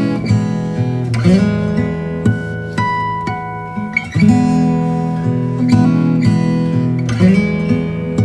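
Background music: acoustic guitar strumming chords about every second and a half, with single picked notes ringing above them.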